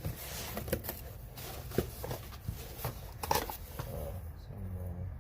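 Packaging being handled and opened by hand: irregular rustling and crinkling with sharp clicks and taps.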